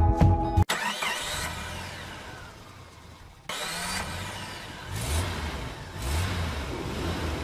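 Car engine sound effect: an engine starts and runs with rising revs, fading over a few seconds, then comes back suddenly louder about three and a half seconds in with more revving.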